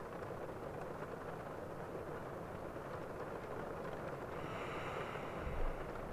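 Steady rain ambience with a man's slow breathing as he sleeps; one breath swells in about four and a half seconds in. A brief low thump comes near the end.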